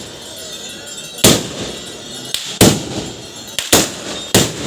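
Guns firing in an uneven series: four loud, sharp shots roughly a second apart, with a couple of fainter shots between them.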